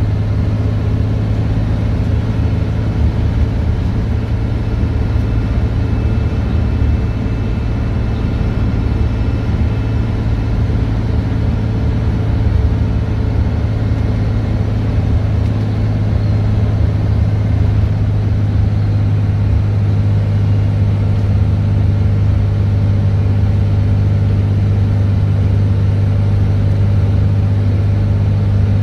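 Scania N113DRB bus's 11-litre six-cylinder diesel engine running steadily, a constant low drone heard from inside the passenger saloon.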